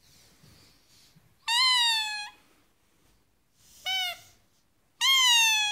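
A squeaky dog toy gives two long, high squeaks, about 1.5 s in and near the end, each slightly falling in pitch. About 4 s in, a Siberian husky answers with one short, lower-pitched vocal 'talking' call.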